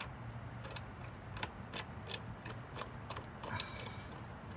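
Light metallic clicks and taps, about a dozen at uneven intervals, as a hand works at the bottom mounting bolts of a 2002 Acura RSX Type S starter motor. A steady low hum runs underneath.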